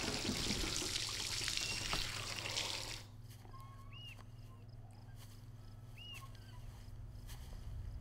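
Film soundtrack ambience: a steady rushing noise that cuts off about three seconds in, then quiet with two short faint chirps about two seconds apart over a low steady hum.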